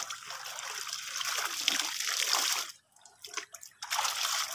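Clothes being worked by hand in a basin of soapy water, with water splashing and sloshing and a garden hose trickling in. The splashing stops for about a second near three seconds in, then starts again.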